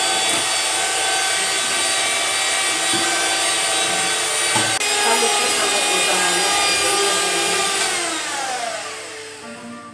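Handheld electric mixer running steadily, its beaters whipping eggs in a stainless steel bowl. About eight seconds in it is switched off and its whine falls in pitch as the motor winds down.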